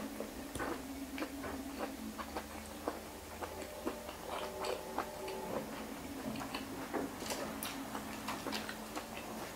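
Eating sounds: chewing and small irregular clicks, with light clinks of a metal fork against a glass bowl as noodles are stirred and lifted, over a faint steady hum.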